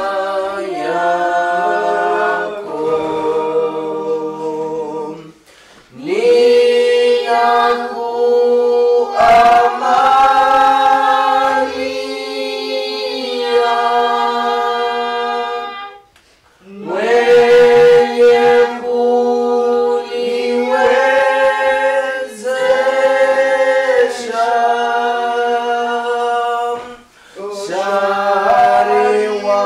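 A group of voices singing a Swahili hymn unaccompanied, in long held phrases. The singing breaks off briefly for breath about six and sixteen seconds in.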